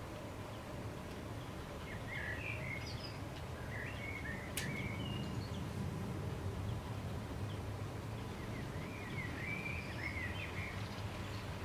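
Model grain hopper train running on the track, a steady low rumble, with clusters of short high chirps over it a couple of seconds in and again near the end, and one sharp click in between.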